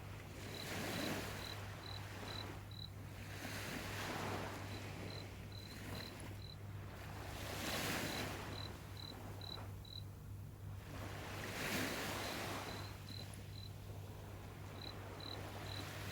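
A cricket chirping in runs of short, evenly spaced high chirps, about four or five a second, with brief pauses between runs. Under it, a rushing wash swells and fades every three to four seconds, like small waves coming in, over a steady low hum.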